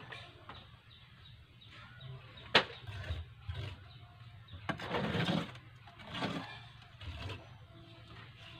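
Hand trowel scraping and spreading wet cement on a concrete slab, with one sharp knock about two and a half seconds in and a few longer scrapes a little after halfway, over a steady low hum.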